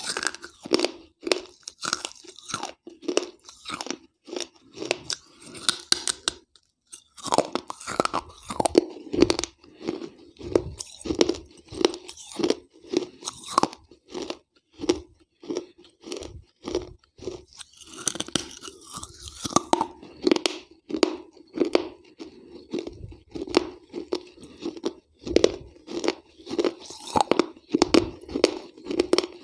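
Close-miked crunching and chewing of pieces of wet terracotta gullak (clay piggy bank). It is a quick, uneven run of crisp crunches, several a second, with a short pause about six seconds in.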